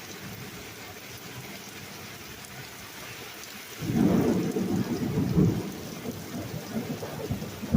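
Steady rain, then about four seconds in a sudden loud rumble of thunder that rolls on for a couple of seconds and dies down, with further low rumbles near the end.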